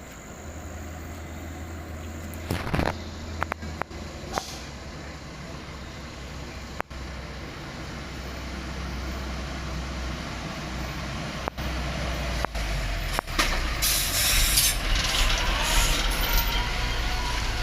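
Diesel dump truck engines running at low revs, with a few short air-brake hisses early on and a longer, louder burst of air hiss about 14 seconds in as the engine noise swells.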